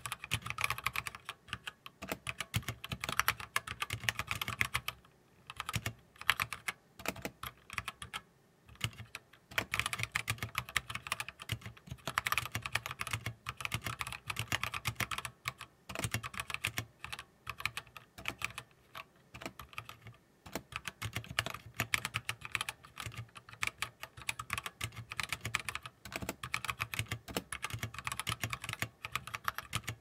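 Typing on a KBDFans 60% wooden-case mechanical keyboard with Gateron Yellow linear switches mounted without a plate: fast, continuous keystrokes with a few short pauses.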